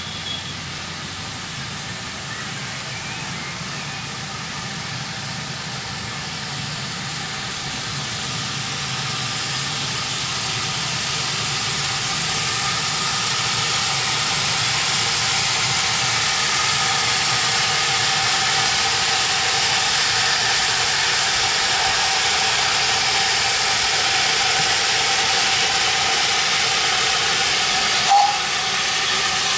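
7¼-inch gauge miniature steam locomotive hauling a passenger train, a steady hiss of steam that grows louder as it approaches and then holds as it passes close. A brief sharp note near the end.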